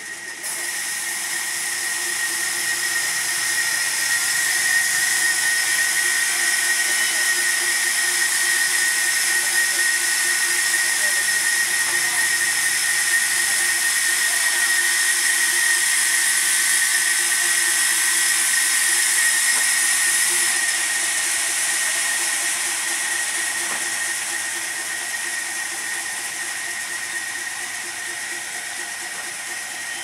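Sawmill band saw cutting lengthwise through a log: a loud, steady hiss with a high whine. It starts suddenly about half a second in and is loudest through the middle of the cut, then gradually eases off in the last third.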